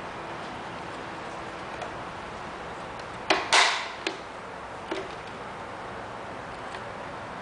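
Plastic battery cover pressed shut on the underside of a Liectroux Q5 robot vacuum: a sharp click a little over three seconds in, a louder brief plastic scrape and snap right after, then two lighter clicks about a second apart.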